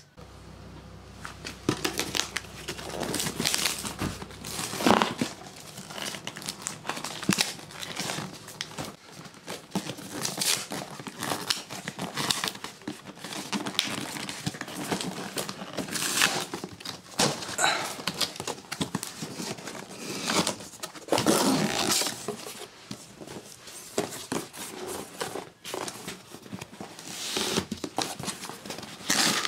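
Cardboard box being handled and opened: irregular rustling, scraping and crinkling of cardboard flaps and packaging, with many sharp knocks and scuffs.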